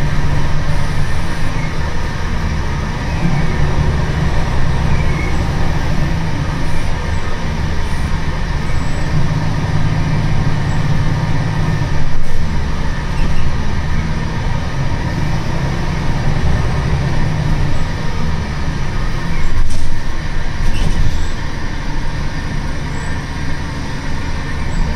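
Inside a Wright Solar single-deck bus on a Scania chassis under way: a steady engine and road drone fills the cabin, with a sharp knock about twelve seconds in and another near twenty seconds.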